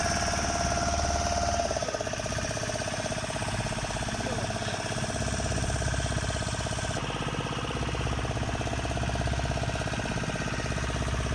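Fishing boat's engine running steadily under way, with a fine even pulse and a held whine over it.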